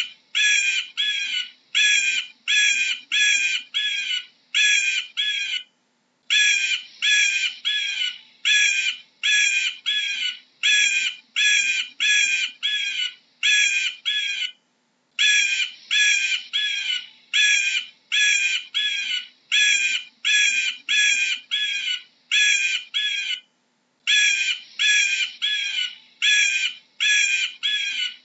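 Bald eagle calling: a long series of high, piping notes, about two a second, in runs of several seconds with short pauses between.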